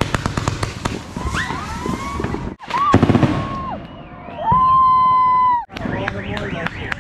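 Consumer fireworks going off: a rapid crackling of many small pops, with whistles that rise and then hold, and one long steady whistle near the middle that cuts off suddenly.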